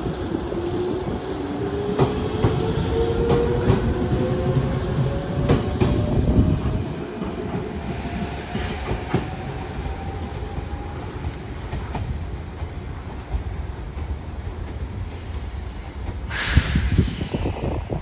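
Nishitetsu 600 series electric train pulling away: its traction motors whine, rising steadily in pitch as it gathers speed, over the clack of wheels on rail joints. The sound fades as the train draws away, with a brief loud rush of noise near the end.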